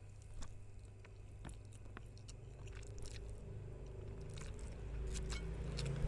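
Close-up chewing of spicy noodles, with scattered wet clicks and smacks of the mouth. A low hum builds toward the end.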